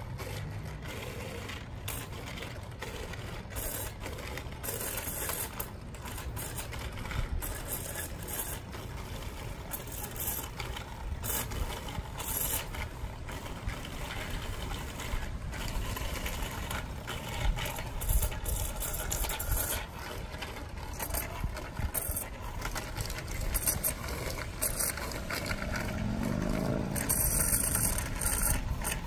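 Bicycles rolling along a paved path: tyre noise with frequent small rattles and scrapes over a low steady rumble.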